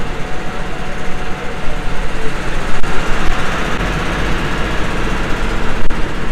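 Engine of a river ferry launch running steadily with an even low hum.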